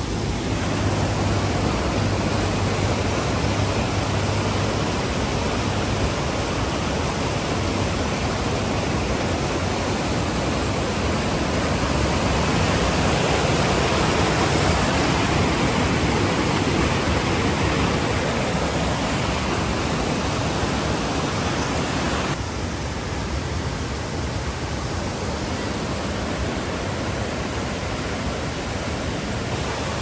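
Waterfall rushing over rocks: a steady, full rush of falling water, loudest in the middle and dropping to a softer, duller rush about two-thirds of the way through.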